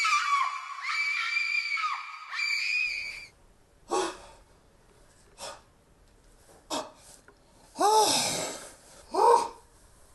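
A person screams in a long high-pitched cry that climbs in pitch for about three seconds and then stops. It is followed by a handful of short wordless cries and gasps.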